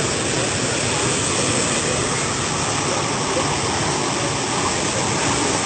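Waterfall pouring down in flood, a steady rush of falling water with no let-up.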